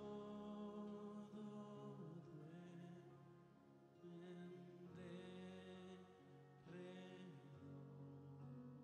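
Soft singing of a slow Christmas hymn verse in Spanish, with long held notes and short breaks between phrases, over quiet instrumental accompaniment.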